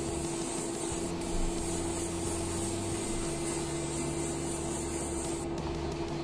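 Paasche Talon airbrush spraying a very light tack coat of paint: a steady hiss of air and paint that stops near the end, over a constant low hum.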